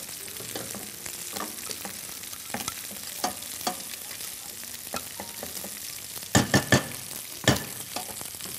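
Wire whisk scraping thick cream out of a metal saucepan, with scattered clinks of metal on metal and a sharp cluster of three taps against the pan a little past the middle, then one more soon after. Food frying sizzles steadily underneath.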